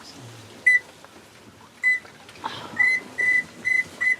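Short whistled peeps from a duck whistle blown close by, about six notes at one steady pitch, coming quicker and more regularly in the second half, calling to pintails overhead.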